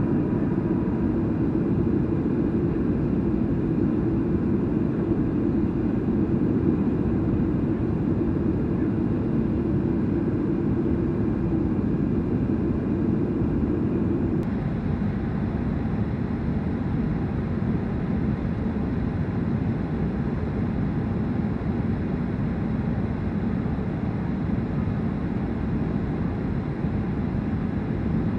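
Steady noise of a Boeing 737-800's CFM56 jet engines and rushing airflow, heard inside the passenger cabin during the descent to land with flaps extended. About halfway through, the sound changes abruptly and the deep part of the noise drops down.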